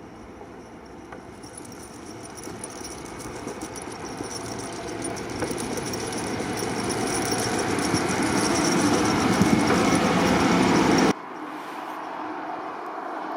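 A passing vehicle approaching, growing steadily louder for about eleven seconds. It cuts off abruptly, and a quieter, steady running sound follows.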